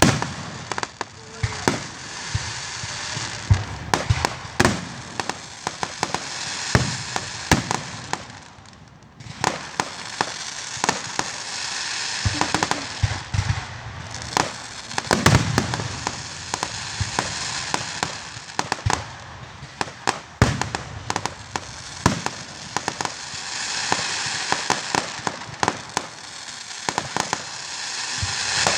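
Fireworks going off: a rapid string of sharp bangs over continuous crackling, with a short lull about nine seconds in.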